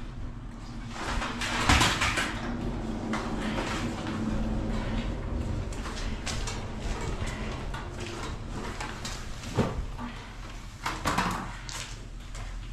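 Irregular knocks, scrapes and rustles of camping gear being handled and set down on the floor. The loudest clatters come about two seconds in and again near the end.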